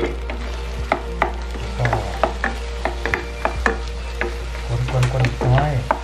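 Wooden spatula stirring and scraping soft scrambled egg with shrimp and squid around a hot pan, in irregular strokes about two or three a second, with a light sizzle of frying underneath.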